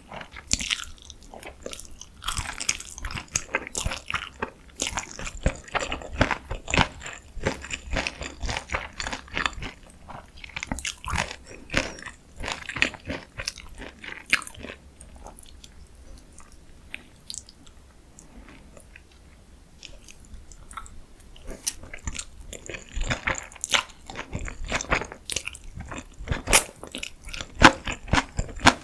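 Close-miked crunching, biting and chewing of crisp deep-fried food, with dense crackly crunches that ease off for a few seconds in the middle and then pick up again.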